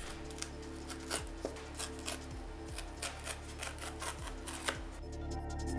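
Cardboard retail box being handled and its perforated tear strip pulled open: a run of small rasping clicks and rustles, over background music with steady held tones.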